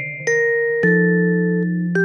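Background music: a slow melody of struck, bell-like keyboard notes, each held and fading, a new note about every half second to second.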